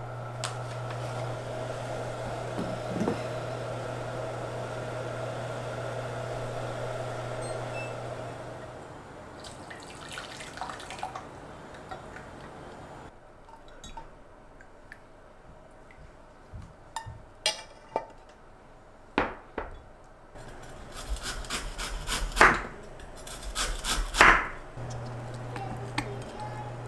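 Kitchen sounds of a soy-sauce and kelp tempura sauce being made. First a saucepan heats on a cooktop over a steady low hum. Then the sauce is strained through a metal mesh sieve into a glass measuring jug, with scattered clinks and a few sharp knocks, the loudest two near the end.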